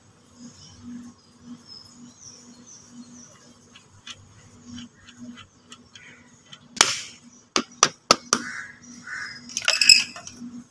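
Metal tools and scooter front-brake and axle parts clicking and knocking as the front wheel is taken apart: a few sharp clicks about seven seconds in, then a louder cluster near the end.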